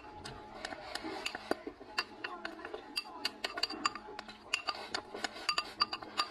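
Wooden chopsticks clicking and scraping rapidly against a ceramic rice bowl as the last grains are shoveled into the mouth. Many quick clinks, some ringing briefly, come thickest in the second half.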